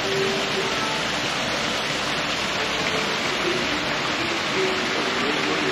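A steady, even rush of water, like a waterfall or fountain.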